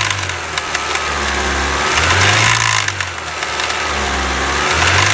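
Car engine running, with a whine that dips and rises in pitch in cycles about every two and a half seconds.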